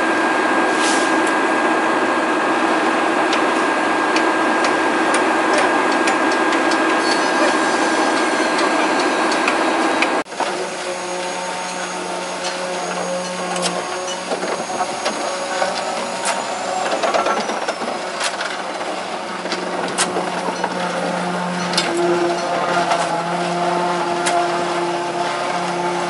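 Steady drone of construction-site machinery with scattered sharp knocks. About ten seconds in the sound changes abruptly to a lower, steadier hum, still with occasional knocks.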